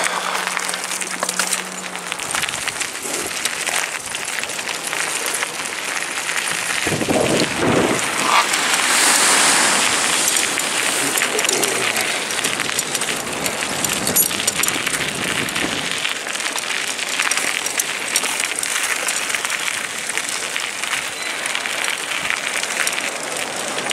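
Steady rushing noise of wind and ocean surf, with a fine crackling texture throughout.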